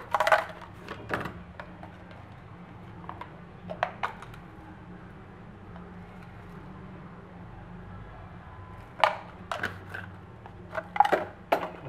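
Seasoning bottles being handled and shaken over a cooking pot: scattered light taps and clicks, a few at a time, over a low steady hum.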